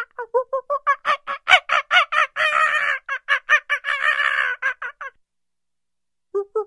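Monkey calls: a fast run of short, repeated pitched calls, about five a second, broken by two longer harsh calls in the middle, then a pause of about a second before the calls start again near the end.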